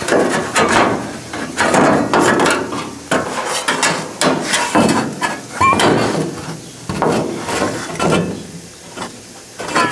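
Thin sheet-steel filler panel being flexed and bent by hand while it is test-fitted into a 1970 El Camino's steel wheel tub: irregular rattling, flexing and knocking of loose sheet metal against the body.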